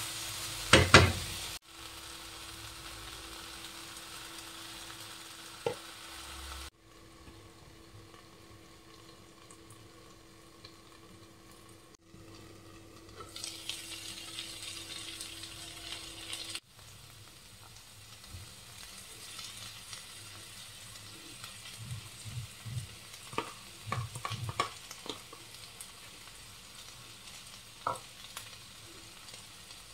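Spiced potatoes and vegetables sizzling in a non-stick frying pan while a spatula stirs them, the hiss shifting abruptly in level several times. A loud knock of the spatula against the pan comes about a second in, and a run of quick scrapes and taps comes later.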